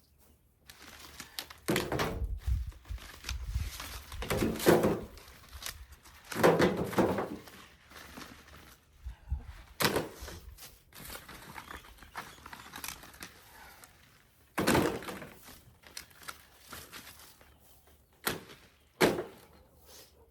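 Loofah gourds being handled and dropped into a wheelbarrow: a series of irregular knocks, about seven, each with rustling.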